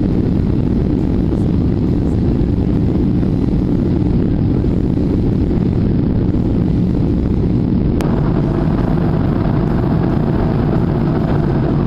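Steady low rumble of jet engines and rushing air heard inside an airliner cabin in flight. About eight seconds in, a single click marks a cut, after which the cabin noise goes on slightly brighter.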